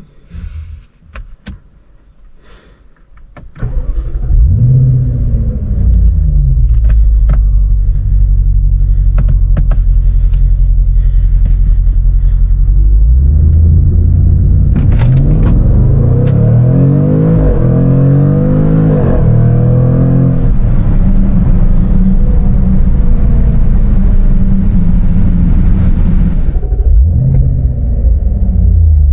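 Jaguar F-Pace SVR's supercharged 5.0-litre V8 heard from inside the cabin: a few light clicks, then the engine starts with a rev flare about four seconds in and settles to a low idle. It then pulls hard with the pitch climbing in steps through several gear changes, holds a steady loud drone, and eases briefly near the end.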